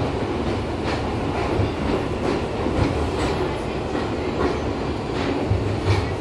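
Inside a moving New York City R62 subway car: a steady rumble of wheels on rail, with clacks over the rail joints at uneven intervals, about one every half second to second.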